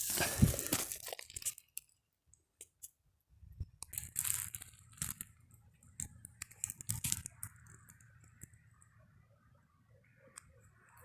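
Dry brush and leaves crunching and crackling underfoot and against the body as someone pushes through scrub. The crunching is loudest in the first second and a half, goes quiet, then comes back as scattered snaps and rustles for a few seconds.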